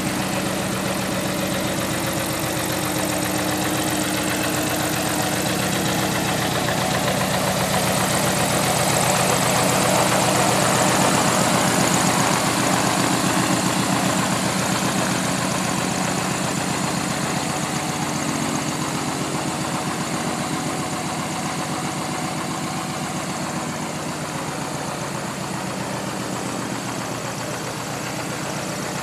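Lycoming IO-360-A1A four-cylinder aircraft engine on a Van's RV-7A, running steadily on the ground with its propeller turning during an engine ground test. It swells somewhat louder for a few seconds before the middle, then eases off.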